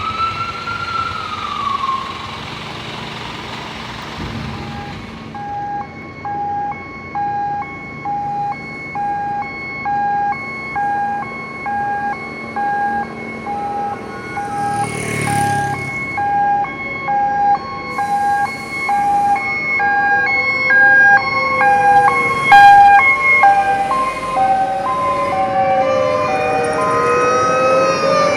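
Fire truck sirens. A wailing siren sweeps up and down at first, then a siren tone pulses on and off about once a second, and from about two-thirds of the way in more wailing sirens join, rising and falling over it. A brief hiss comes about halfway through.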